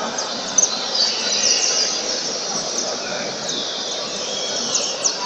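Several caged saffron finches (canário-da-terra) singing at once: rapid, overlapping high chirps and trills.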